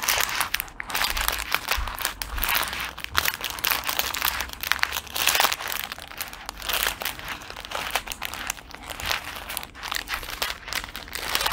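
Small plastic packets of diamond painting drills crinkling and rustling as hands sort through a clear plastic bag of them: a continuous, irregular run of crackles.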